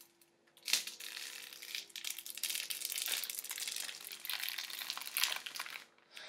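Protective plastic film being peeled off the clear side-panel window of a PC case: a sharp crackle about a second in, then a steady run of fine crackling as the film comes away, stopping just before the end.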